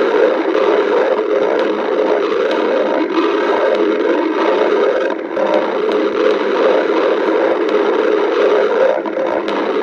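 Human stomach growling: a loud, continuous churning gurgle that dips briefly about five seconds in and again near the end.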